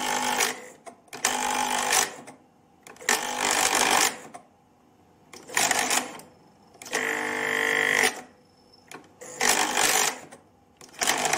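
Beocord 2000 De Luxe reel-to-reel tape recorder's transport running with no tape loaded, in repeated loud bursts of mechanical whirring about a second long, starting and stopping every second and a half or so. The burst about seven seconds in carries a steady whine. The machine is very noisy, and the owner wonders whether a safety shut-off stops it when there is no tape.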